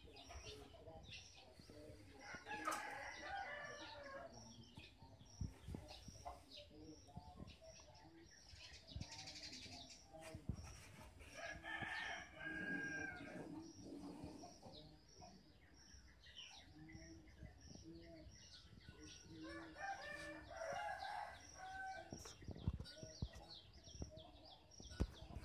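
A rooster crowing three times, each crow lasting about two seconds and coming roughly eight seconds apart. Under the crows runs a faint, even, high chirping repeated about twice a second.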